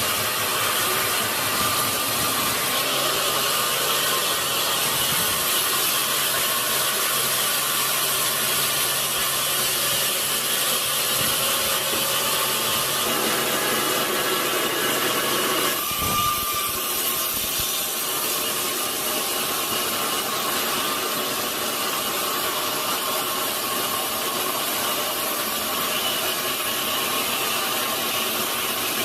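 Sawmill saw running steadily through a large log, a continuous rasping machine noise. About sixteen seconds in there is a brief knock, and the sound then changes slightly and drops a little in level.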